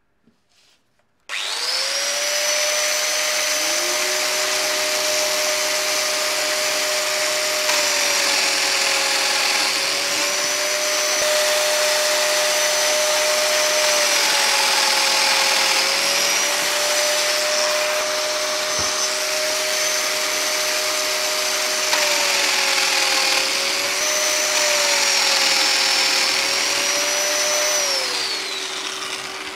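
Festool Domino joiner's motor starting and running, its pitch dipping briefly several times as the cutter plunges into the wood, then winding down near the end. A dust extractor starts a couple of seconds after the joiner and keeps running steadily after it stops.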